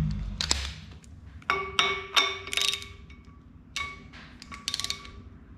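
Metal hand tools clinking against metal: a run of sharp knocks, several ringing on briefly with a clear metallic tone, about a second and a half in and again near the end.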